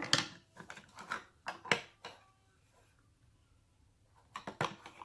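Slime being squeezed and pulled by hand: a run of short wet clicks and pops through the first two seconds, then another quick cluster about four and a half seconds in.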